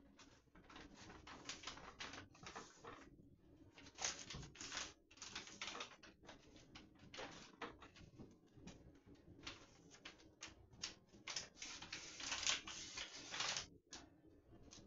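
Pleated paper blackout shade rustling and crinkling as hands press and fold its pleats, in short irregular bursts that are loudest a little before the end.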